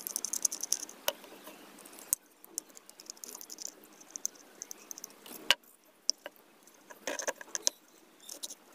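Small screwdriver clicking and scraping on the screws of a Ku-band LNB's metal housing as they are backed out, with light metallic ticks and rattles, a single sharp tap about five and a half seconds in and a quick run of clicks near the end.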